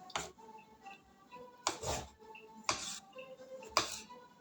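Soft background music with four sharp knocks or clicks, roughly a second apart.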